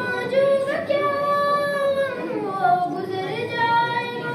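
A young girl's voice chanting an Urdu manqabat, a devotional praise poem, in long held notes that slide from one pitch to the next.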